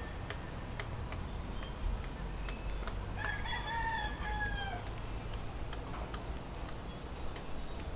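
A rooster crows once, about three seconds in: a single call of under two seconds that drops in pitch at its end.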